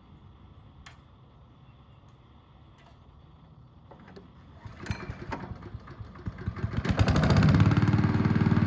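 Wood chipper's small petrol engine starting. It is quiet at first with a single click, then from about halfway it sputters unevenly and builds into a loud, fast running beat near the end.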